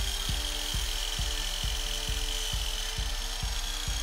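Kobalt compound miter saw running with a steady high whine as its blade cuts through a cherry leg blank. Background music with a steady beat plays underneath.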